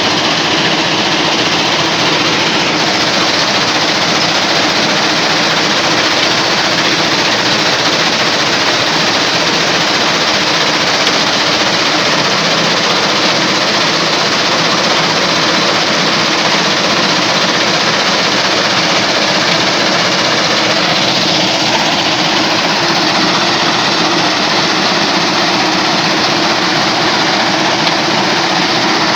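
Stone crusher machine running: a loud, steady, dense mechanical noise that holds without a break.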